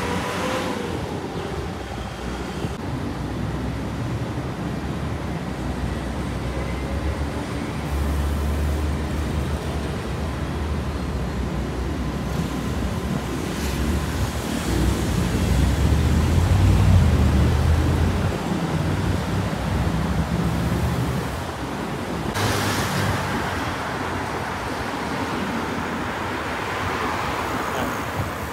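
Road traffic passing on a wide city street, a vehicle going by right at the start and another rush of passing traffic about two thirds of the way in, under heavy wind rumble on the microphone that is strongest around the middle.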